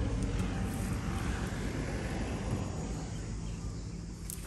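A distant engine running with a steady low hum under outdoor noise and some wind on the microphone, fading a little toward the end, with a light click near the end.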